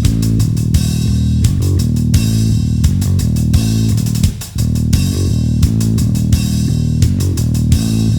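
Rock background music, driven by bass and guitar with a steady drum beat, with a brief drop about four and a half seconds in.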